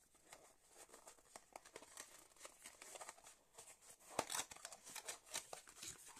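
Faint rustling, crinkling and small clicks of a cardboard face-cream box being handled and opened, with a sharper tap about four seconds in.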